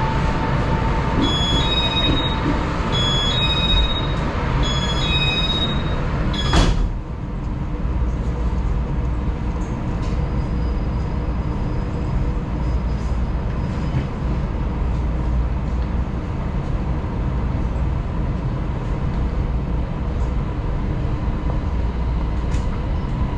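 Taiwan Railways local train: a two-note electronic door chime sounds three times while the doors are open, then the doors bang shut about six and a half seconds in. After that the carriage rumbles steadily.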